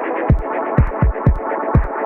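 Electronic background music with a steady beat of deep kick drums, ticking hi-hats and a dense synth layer.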